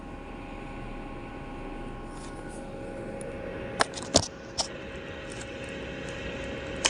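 Asus laptop's CPU fan running loud: a steady rushing with a whine of several tones that shifts pitch about two and a half seconds in. A few sharp clicks come about four seconds in and again near the end.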